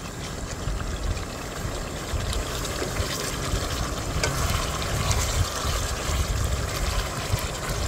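Chicken curry gravy simmering in a pot on a gas stove, bubbling with faint small pops as it is cooked down, and stirred with a silicone spoon, over a steady low rumble.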